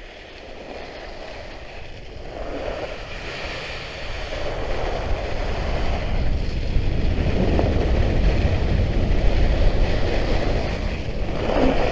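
Ski blades of a Trikke skki scraping and hissing over hard, very cold snow while carving downhill, growing louder over the first several seconds as speed builds. Wind rumbles on the helmet-camera microphone underneath.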